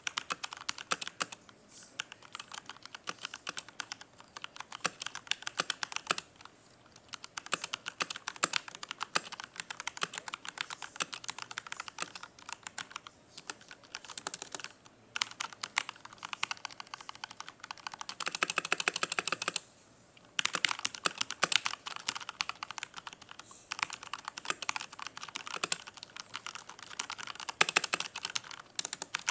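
Mechanical keyboard with lubed Outemu Brown tactile switches being typed on, a steady stream of key clicks and clacks with a few short pauses and a flurry of very rapid keystrokes about two-thirds through. Picked up close by a wired earphone microphone.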